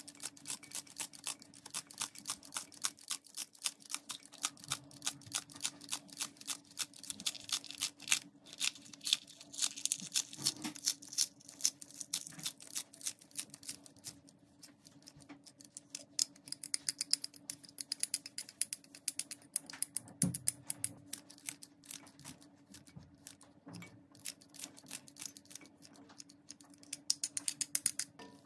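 Double-bladed kitchen scissors snipping green onion into a stainless steel pot: a rapid run of crisp snips, about two or three a second.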